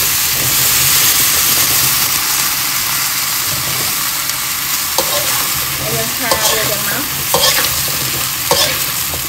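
Water lily stems stir-frying in a steel wok: steady sizzling while a metal spatula turns them, with several sharp scrapes of the spatula on the wok in the second half.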